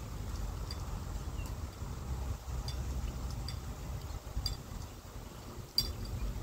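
Scissors snipping hair: a handful of short, sharp snips at irregular intervals, the sharpest near the end, over a low wind rumble on the microphone.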